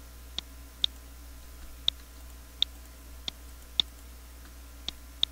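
A computer mouse button clicked about eight times at uneven intervals, picking lines to trim in a CAD drawing, over a faint steady low hum.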